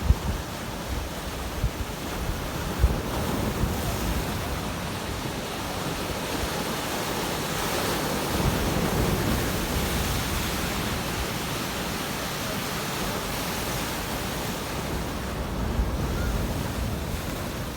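Sea waves breaking and washing up the shore, swelling a little around the middle, with wind buffeting the microphone.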